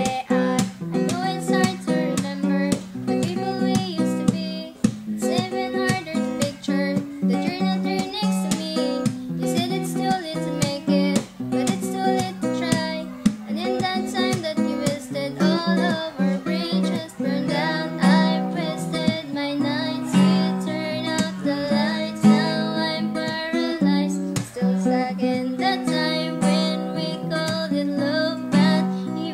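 Acoustic guitar strummed steadily, with a voice singing over it.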